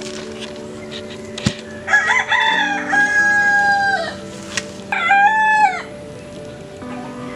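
A rooster crowing twice: a long crow starting about two seconds in, then a shorter one a second later.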